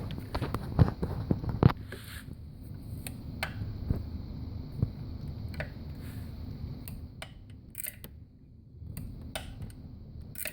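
A ratchet wrench clicking in a quick run of clicks, then scattered metal clicks and taps as the tool is worked on a bolt.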